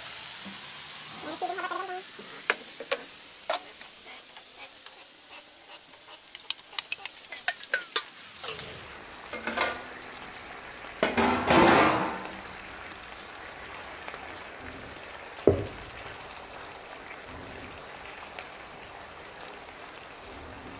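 Raw chicken pieces sizzling as they are tipped into a hot frying pan of sautéed onion, garlic and ginger, over a steady frying hiss. Many sharp clicks and knocks of the pieces and a steel bowl against the pan, a longer, louder rush about eleven seconds in, and a single knock later on.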